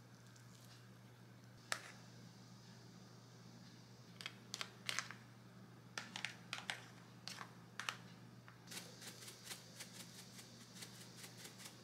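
Light kitchen handling sounds: a single sharp click about two seconds in, then scattered clicks and taps as natto is scraped from a plastic tray onto a split baked sweet potato. Near the end comes a quick run of small ticks, about five a second, as a spice shaker is shaken over it.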